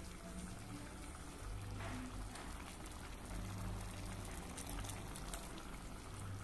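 Rice cooking in a tomato-and-sardine broth at a rolling boil in an aluminium pot: steady bubbling and popping, over a low hum.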